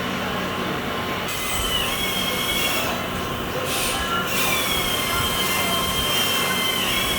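Long, high-pitched squeals that slide slightly in pitch over a steady rubbing hiss, from the 3D-printed plastic insertion tool and lip being pushed along a sliding door's jamb. The squealing starts about a second in, breaks off near the middle and resumes.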